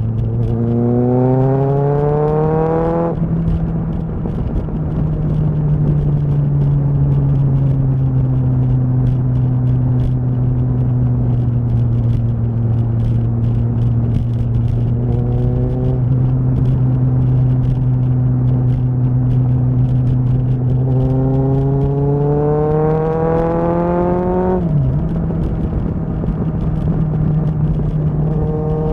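Kawasaki ZXR's inline-four engine under way on the road. It revs up with rising pitch at the start and drops at a gear change about three seconds in, then cruises at steady revs. It pulls up again about three quarters of the way through and drops back once more about 25 seconds in.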